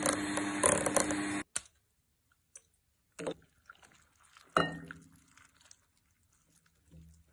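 Electric hand mixer beating a thick cream, running steadily for about a second and a half and then cutting off abruptly. Afterwards a few light knocks and one clink of kitchenware that rings briefly.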